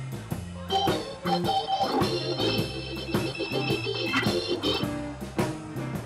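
Two-keyboard electric organ playing held chords over a moving bass line, with a steady beat of percussive hits.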